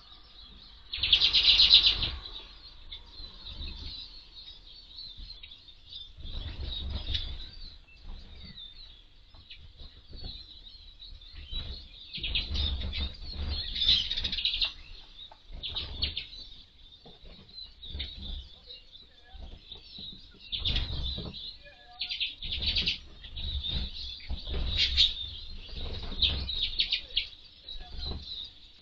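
Flock of small finches, Eurasian siskins and common redpolls, twittering at a feeder, with repeated short flurries of wing flutter as birds land and take off. The loudest flurry comes about a second in.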